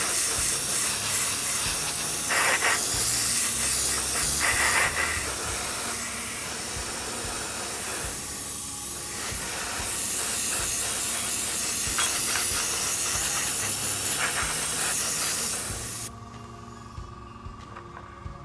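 Airbrush spraying paint, a steady hiss of air with a couple of brief louder spurts in the first few seconds; the hiss cuts off suddenly about sixteen seconds in.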